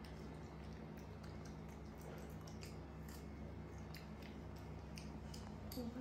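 A macaque chewing a piece of fruit: faint, irregular wet smacking and clicking of its mouth over a steady low hum in the room.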